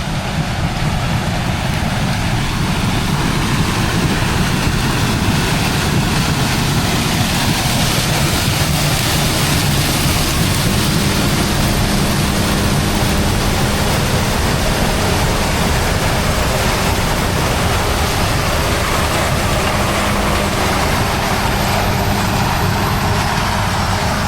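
Heavy farm machinery running steadily at a corn harvest: a low engine drone under a continuous rushing noise. A steady hum joins about ten seconds in.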